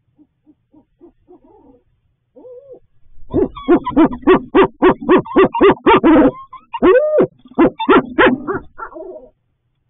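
Barred owls calling at close range: a few soft low notes, then a loud rapid run of hoots about three seconds in, about three a second, a long drawn-out arched call near the end, and a few trailing notes.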